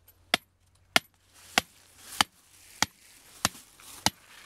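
Seven sharp, evenly spaced blows, about one and a half a second, driving a PVC-pipe soil sampler down into the ground to pull a soil core.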